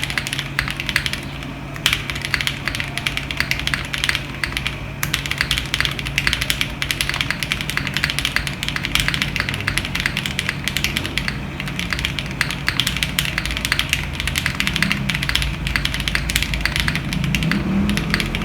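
Continuous fast typing on an MW65 mechanical keyboard, recorded through a phone microphone. The board has a polycarbonate plate and is tape-modded, with lubed Boba-stem switches in Gateron milky-top housings and Cherry screw-in stabilizers. It gives a dense, steady stream of key clacks.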